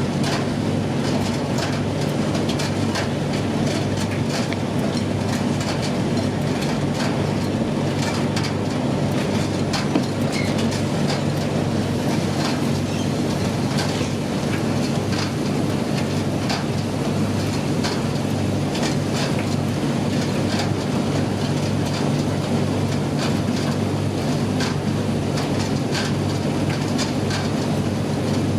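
Commercial gas tumble dryer running with its gas burner lit: a steady hum with frequent light clicks and knocks from the load tumbling in the drum.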